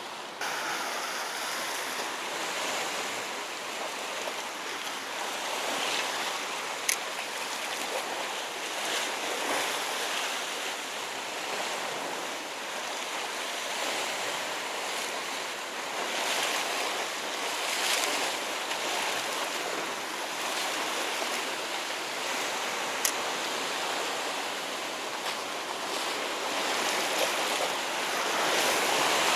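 Sea waves washing against a rocky shore, a steady hiss that swells and eases. Twice there is a short, sharp click.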